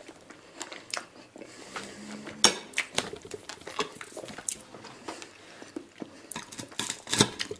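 Fork and knife clicking and scraping on a plate, with chewing between, in a series of short, irregular clicks.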